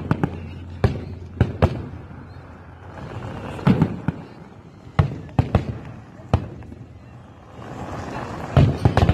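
Aerial firework shells bursting in a display: a series of sharp bangs at uneven intervals, about ten in all, with several close together near the end.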